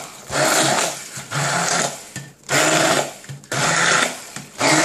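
Stick blender pureeing boiled cauliflower with sour cream and feta into a thick mash, its motor running in repeated short bursts of about a second each, cutting off briefly between them.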